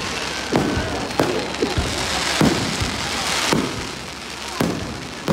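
Aerial firework shells bursting overhead: about six sharp bangs, roughly one a second, over a steady crackling hiss.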